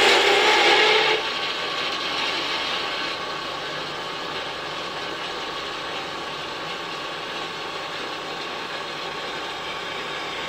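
Horizontal metal-cutting bandsaw running steadily, louder and brighter for about the first second, then settling to an even mechanical whirr.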